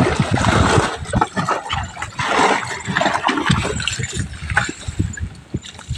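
Sea water splashing and gurgling around a plastic jerry can dipped and emptied at the water's surface beside a boat, in irregular splashes that thin out in the second half.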